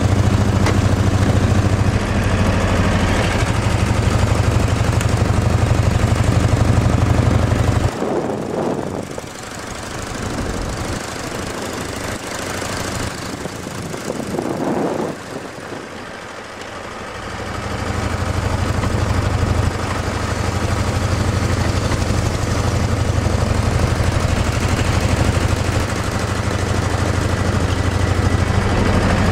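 1935 Morgan three-wheeler's engine running as the car drives along, heard from the open cockpit. About eight seconds in the engine note drops away, leaving quieter noise for several seconds, then the engine comes back in and runs steadily again.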